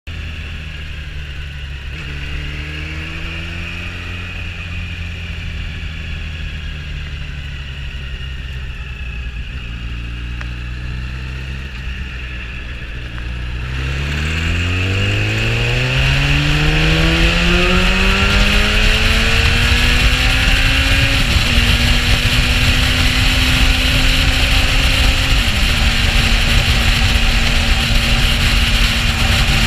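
Motorcycle engine heard from the rider's seat, running at low revs for about half the time. Then it accelerates hard with a long rising pitch, shifts up twice, and settles into a steady cruise. Wind rushes over the microphone once the bike is up to speed.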